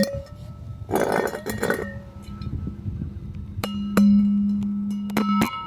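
Something glass or metal struck several times, clinking and ringing on with a steady chime-like tone after each strike. The strikes start about three and a half seconds in, after a short noisy burst about a second in.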